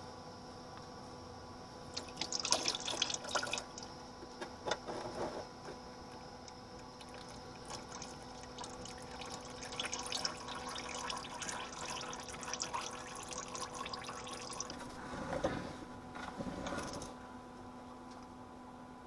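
Engine oil draining out of a partly unscrewed oil filter into an oil pan, starting about two seconds in and stopping near the end, with a few clicks and knocks of handling in the first few seconds.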